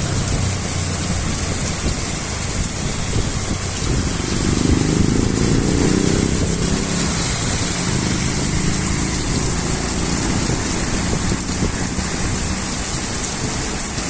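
Steady rain falling, with the engine of a motor vehicle heard for a few seconds starting about four seconds in.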